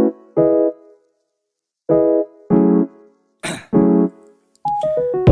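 Background music: piano chords played in short separate stabs with pauses between them, then fuller continuous music comes in near the end.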